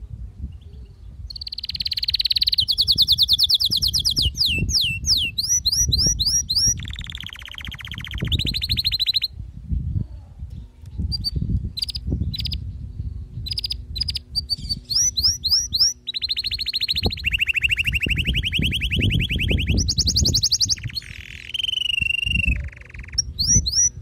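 Canary singing its full song: fast trills and rolling runs of repeated notes, each held for a second or two before switching to a new phrase at a different pitch. About ten seconds in the song breaks into scattered single chirps, then resumes. A low, uneven rumble sits underneath.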